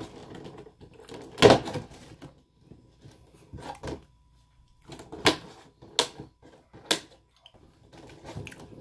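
Clear plastic clamshell food container crackling and clicking as it is handled and opened and a croissant is taken out: a string of sharp crackles, the loudest about a second and a half in.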